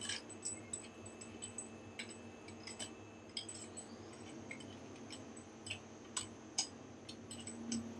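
Irregular light metallic clicks and clinks of bolts being handled and fed by hand into the bolt holes of a CNC lathe's driven-tool turret, over a faint steady hum.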